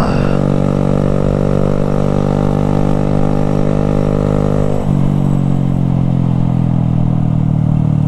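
Honda Grom's small single-cylinder four-stroke engine running steadily under way; about five seconds in the engine note drops and holds at a lower pitch.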